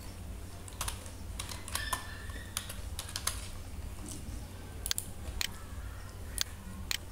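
Typing on a computer keyboard: a dozen or so irregular keystroke clicks, some in quick pairs, over a steady low electrical hum.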